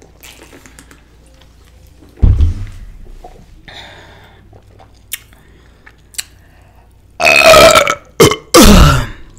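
A low thump about two seconds in, then a woman letting out loud burps near the end: a long one, a short one and another long one. The burps come from gas after chugging carbonated soda.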